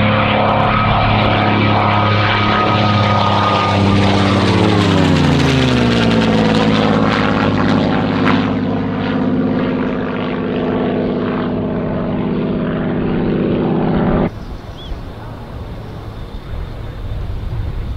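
Messerschmitt Bf 109 fighter's piston engine running loud as it flies past, its pitch dropping as it passes about four to six seconds in. The engine sound cuts off abruptly about fourteen seconds in, leaving quieter outdoor noise.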